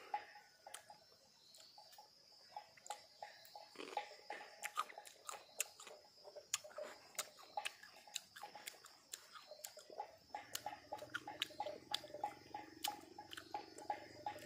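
A person chewing unripe nhót (Elaeagnus latifolia) fruit: quiet, irregular crunches and wet mouth clicks, several a second.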